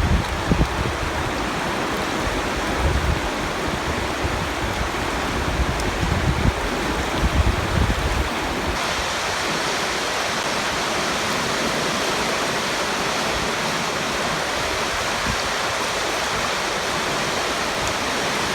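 Creek in flood, water rushing steadily over rocks, with low gusts of wind buffeting the microphone through the first half. A little before halfway the rush turns brighter and hissier.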